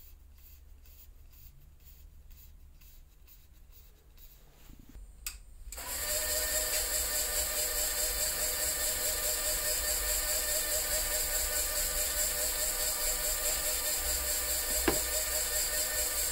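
A cue-repair lathe switches on about six seconds in, just after a click, and runs steadily. Its motor gives a whine made of several steady tones over a high hiss while it spins the carbon fiber cue shaft.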